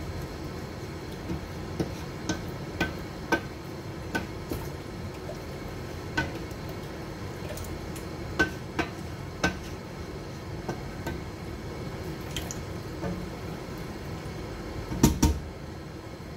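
Wooden spoon stirring thick curry in a stainless steel pot, knocking and scraping against the pot's sides in irregular clicks with a wet stirring sound. Near the end there is a short cluster of louder knocks as the spoon comes to rest on the rim.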